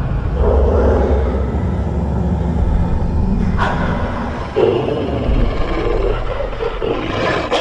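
Wolves snarling and growling over a deep rumble, in two stretches, with a sharp hit about three and a half seconds in.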